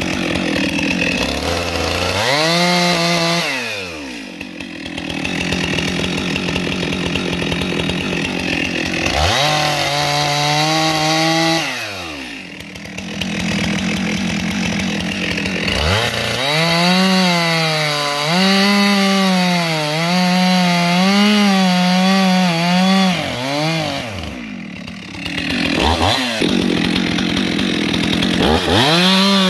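Stihl two-stroke chainsaw bucking logs: the engine revs up to full throttle for each cut and drops back toward idle between cuts, several times over. During the longest cut the high pitch wavers as the chain bites into the wood.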